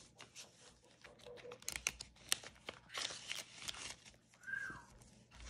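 Paper banknotes and cash envelopes being handled: rustling and crinkling with scattered small clicks, busiest about two and three seconds in.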